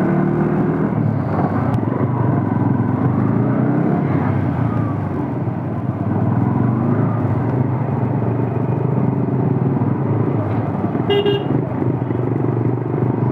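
Motorcycle engine running with road noise while riding, with a short horn honk about eleven seconds in.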